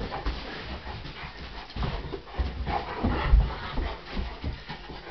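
Newfoundland dog playing and jumping around a person: irregular dull thumps and scuffling of its movement, with the dog panting.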